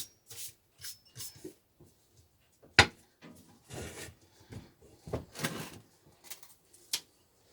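Handling noise from unpacking a propane forge furnace: a series of clicks and light clunks, a sharp knock about three seconds in, and rustling in between.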